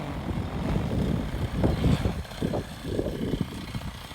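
Strong, gusty wind buffeting the microphone in irregular low rumbling blasts, with no steady engine note.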